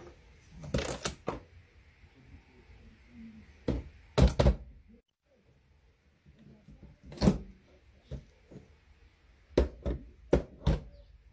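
Sharp plastic knocks and clacks as a paper dragon puppet bumps against the top of a capsule coffee machine. They come in quick groups: a few about a second in, a close pair around four seconds, one near seven seconds and a fast run near the end.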